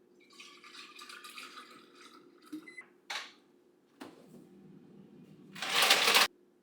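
Kitchen handling sounds as containers are filled: a couple of seconds of rustly pouring or handling noise, a clack about four seconds in, then a loud rushing burst lasting well under a second near the end that cuts off suddenly.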